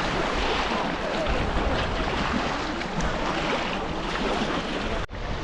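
Rushing whitewater of a river rapid, a steady loud wash of noise with wind buffeting the microphone; the sound breaks off sharply near the end.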